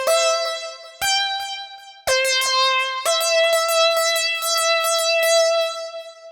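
Single notes of a bright, electric-piano-like synth patch from Arturia Analog Lab V. Each note starts sharply, the pitch changes about once a second, and the last note is held for about three seconds with a rapid flutter of repeated attacks.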